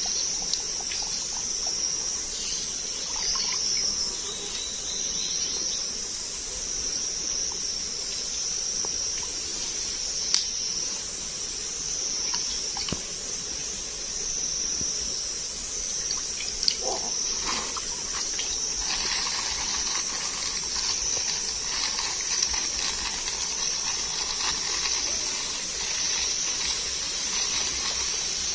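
Steady high-pitched buzz of insects, with water sloshing and splashing as a collapsible net fish trap is pushed down and set in a shallow stream; the splashing grows livelier about two-thirds of the way through.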